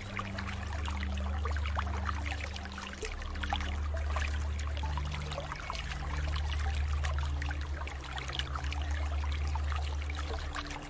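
Water flowing and trickling with a constant patter of small splashes, over low sustained music notes that shift pitch every second or two.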